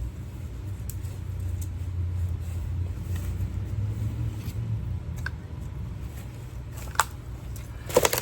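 A low, steady rumble that swells for a few seconds and then eases off. About seven seconds in there is a single sharp crack, and near the end a louder cluster of cracks, likely dry sticks snapping as they are gathered.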